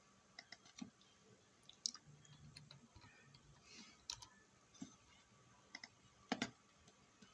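Faint, scattered clicks of a computer mouse, a dozen or so at uneven spacing against near silence, the sharpest about six and a half seconds in.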